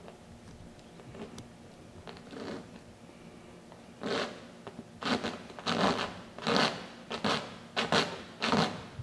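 A tool scraping and rubbing across a painted canvas by hand, in a run of about eight quick strokes starting about four seconds in.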